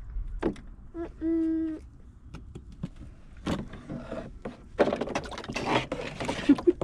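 Water sloshing and splashing in a plastic paddling pool as a child stands up in it, starting about five seconds in, after a few scattered knocks and a brief held vocal tone about a second in.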